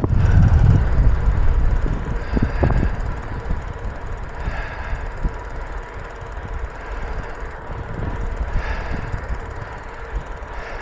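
Wind buffeting the microphone of a moving bicycle, with tyre and road noise: a low rumble, strongest in the first two seconds.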